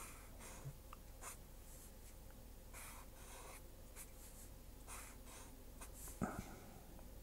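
Fineliner pen drawing on paper: a series of short, faint scratching strokes as leaf outlines are sketched. A single soft knock about six seconds in is the loudest sound.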